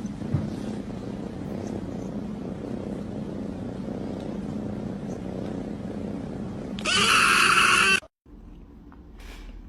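Cat purring steadily close to the microphone, then a loud, harsh sound lasting about a second near the end.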